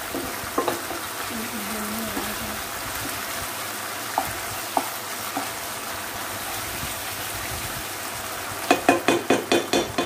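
Chilli-garlic-soy sauce sizzling in oil in a non-stick frying pan while a spatula stirs it, with a few light knocks. Near the end comes a quick run of about eight spatula knocks against the pan.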